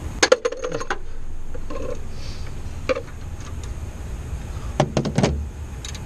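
Sharp metallic clicks and clanks of a ratchet with an oxygen-sensor socket and extension working on a seized upstream oxygen sensor, in a quick run of clicks near the start, a single click in the middle and another run near the end, over a steady low rumble.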